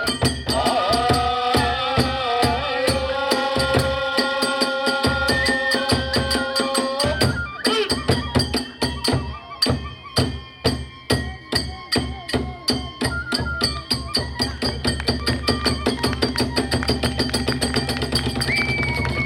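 Kagura festival music: drums and small hand cymbals beat a fast, even rhythm under a bamboo flute playing held notes. About seven seconds in, the flute drops out and the strikes stand out more sharply. Near the end, a high flute note returns.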